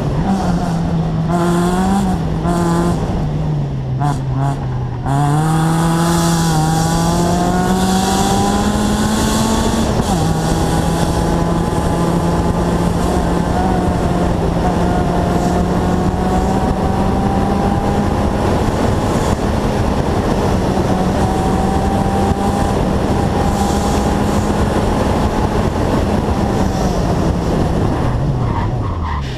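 Rally car engine at full throttle, heard from onboard. The revs dip and climb through gear changes in the first few seconds, then rise steeply about five seconds in. They hold high and steady for a long stretch and fall sharply at the very end.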